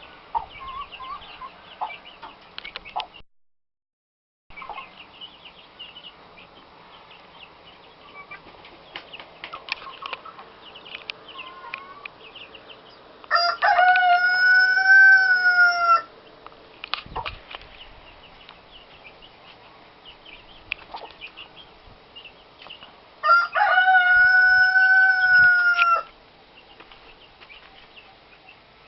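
Rooster crowing twice, two long loud crows about ten seconds apart, over steady high cheeping and chirping of chicks and birds. The sound drops out completely for about a second near the start.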